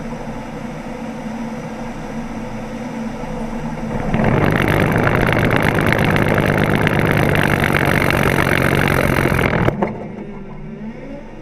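Road and tyre noise from under a pickup with a solid front axle, then about four seconds in a loud, dense rattling shake with a steady low hum sets in and cuts off suddenly some five and a half seconds later: the front axle and steering linkage going into death wobble.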